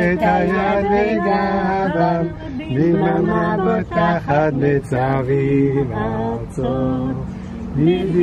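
Men and women singing a song in Hebrew together, with long held notes.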